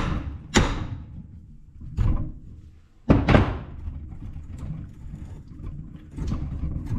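Metal clanks and knocks from work on an old, rusty hydraulic valve: four sharp strikes over the first three seconds or so, each ringing briefly, the fourth the loudest. Lighter clatter and handling noise follow.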